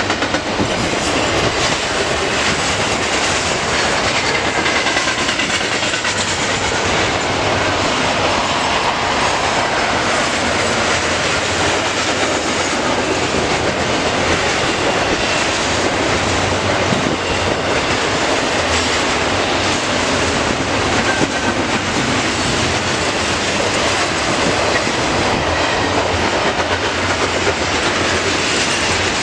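Double-stack intermodal container train rolling past steadily: continuous noise of steel wheels running on the rails, with a faint high wheel squeal now and then.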